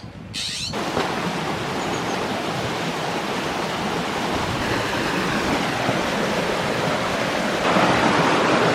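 Creek waterfall rushing steadily; it comes in abruptly about a second in and gets louder near the end.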